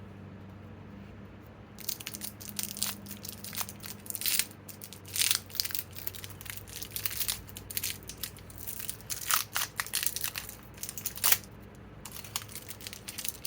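Packaging wrap being pulled off and crumpled while a new impact wrench is unwrapped: irregular crinkling and crackling that starts about two seconds in and pauses briefly near the end. A faint steady hum runs underneath.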